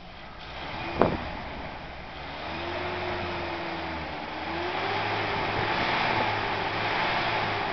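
1982 Toyota pickup's engine running under a Seafoam cleaning treatment and being brought up in revs, its note rising in pitch and loudness over several seconds. A sharp click comes about a second in.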